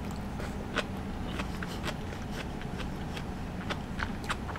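Close-miked chewing of hot pot greens and noodles with the mouth closed: a string of short, wet mouth clicks, about three a second, over a low steady hum.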